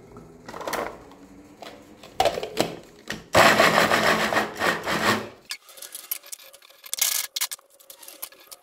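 Food chopper chopping peeled garlic cloves: a couple of short bursts, then a longer run of about two seconds, followed by light clicks and taps on the chopper.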